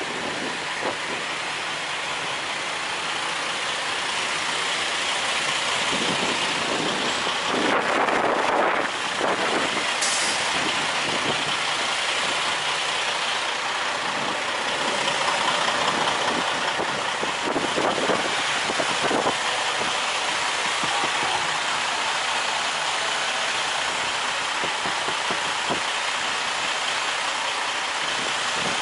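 Heavy wind noise on the microphone over the steady sound of trucks idling and moving around a truck stop, with a few louder swells.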